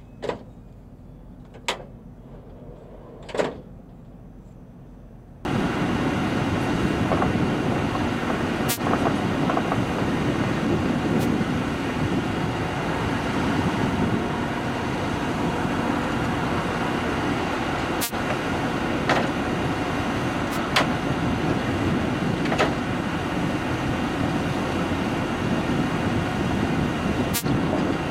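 A few sharp clicks of handling, then about five seconds in a loud, steady engine noise starts suddenly and runs on: the ScanEagle drone's engine running on its launcher ahead of a catapult launch.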